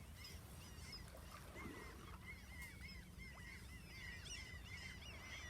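A flock of birds calling, many short overlapping chirps throughout, over a steady low rumble.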